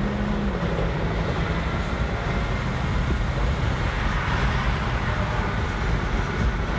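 Car cabin noise at highway speed: a low, even rumble of tyres and wind. An engine hum drops away about half a second in.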